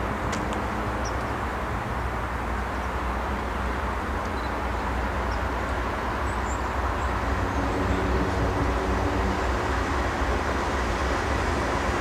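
GE C40-9W diesel locomotives approaching: a steady low engine drone and rumble that grows gradually louder, with a few faint high chirps over it.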